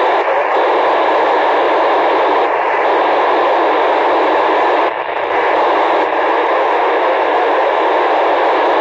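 FM radio receiver tuned to the PO-101 satellite's downlink, putting out steady static hiss with no one talking on the channel. The hiss is squeezed into the narrow voice band and dips once, briefly, about five seconds in.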